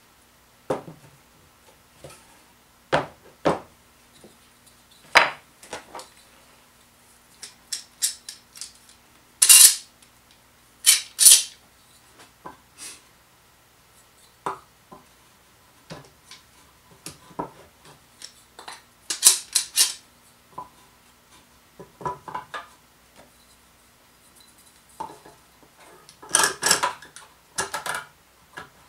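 Metal bar clamps clicking and clattering as their sliding jaws are run along the bars and set against a glued-up dovetail drawer, in irregular clicks and rattles with a few louder clattering bursts.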